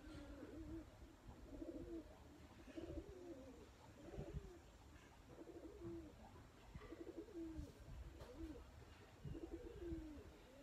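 Faint, low-pitched bird calls repeating about once a second.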